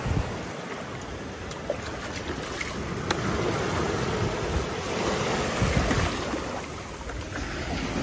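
Shallow sea surf washing around, with seawater sloshing in a plastic bucket of small fish as it is rinsed of sand and poured into a hand net; some wind on the microphone.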